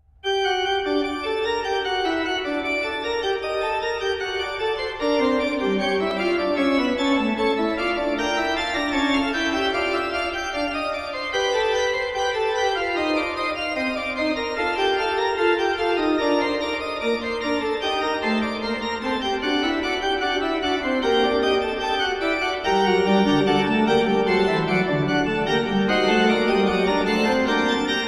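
Organ music: held chords and a moving line of notes, with deeper bass notes coming in near the end.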